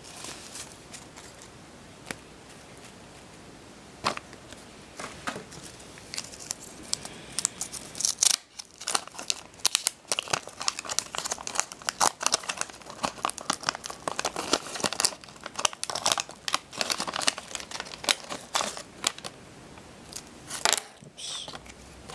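Wax-paper wrapper of a trading card pack crinkling and tearing as it is opened by hand. A few scattered crackles come first, then dense crackling through most of the rest.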